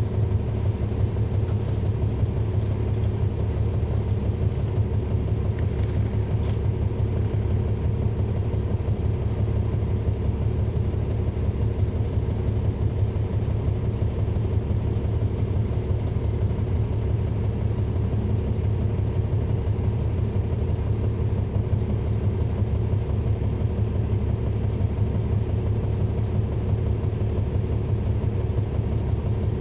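Caterpillar C13 diesel engine of a NABI 40-SFW transit bus, heard from the rear seat inside the bus, running steadily with a deep drone that holds one pitch, neither revving up nor dropping off.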